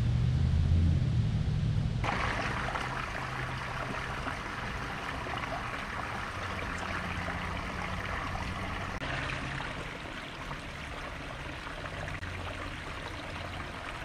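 Low wind rumble on the microphone for about two seconds, then a small tannin-stained creek spilling over a log into a shallow pool, a steady trickle of running water.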